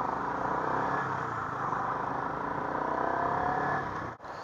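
Yamaha R15 v3 motorcycle's single-cylinder engine running through traffic, rising in pitch at about three seconds as the bike accelerates. The sound drops out briefly just after four seconds.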